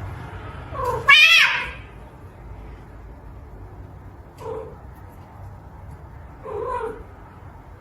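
Domestic cat meowing: a short meow, then a loud, wavering yowl about a second in, followed by two shorter meows a few seconds apart.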